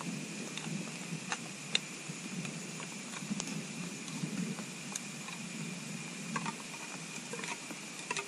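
Tin of stewed meat being opened with a hand can opener: scattered, irregular metal clicks and scrapes over a steady low background noise.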